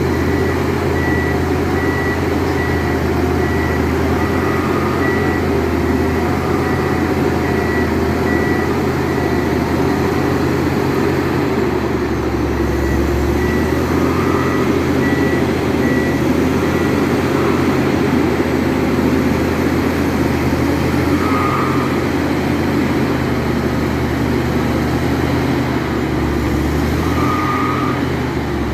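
Sandvik DP1100i top-hammer surface drill rig running: its diesel engine and hydraulics drone steadily under the rapid hammering of the rock drill. A warning beep repeats at a steady pace through the first half, then stops.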